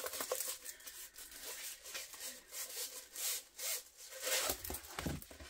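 A diamond-painting canvas with its plastic cover film being rolled the opposite way on a tabletop to flatten it: soft, uneven rubbing and rustling of the film and canvas, with a few louder rustles in the second half.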